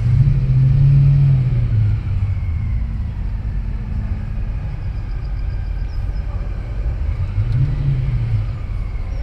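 A car's engine running close by. Its low note swells over the first two seconds and again briefly about eight seconds in, over a steady low rumble.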